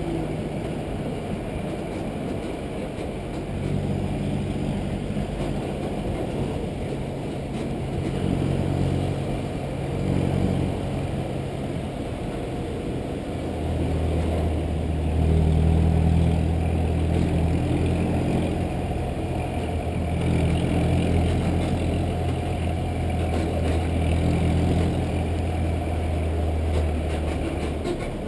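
City bus's diesel engine running close ahead, a steady low drone that gets louder about halfway through, over road and wind noise.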